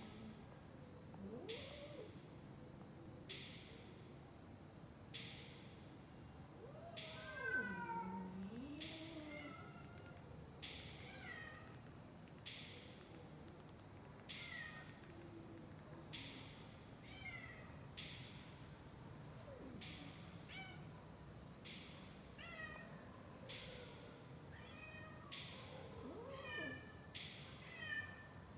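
A domestic cat meowing several times, its calls rising and falling in pitch, the loudest about a quarter of the way in. Under it runs a steady high trill of crickets, with a pulse about every two seconds.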